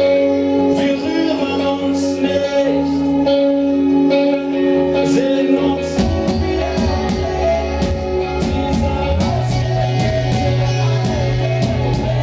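Rock band playing live, with sustained guitar chords over drums and cymbals. About halfway through, the low end comes in much heavier.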